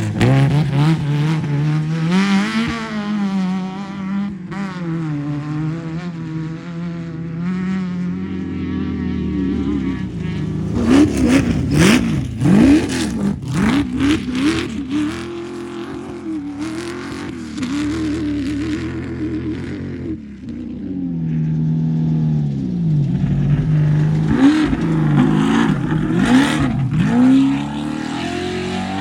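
Off-road race vehicle engines revving, their pitch rising and falling as the vehicles pass close by. The loudest passes come about 11 to 14 seconds in and again about 24 to 27 seconds in.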